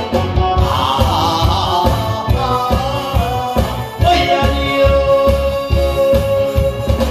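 A man singing a Korean trot song into a microphone over an amplified backing track with a steady, deep drum beat. He holds one long note about four seconds in.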